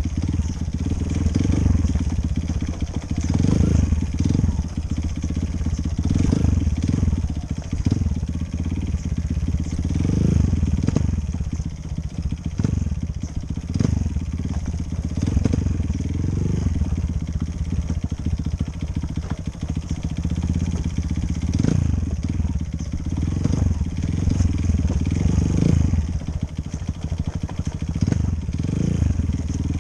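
Enduro motorcycle engine running under way, its revs rising and falling again and again as the bike is ridden.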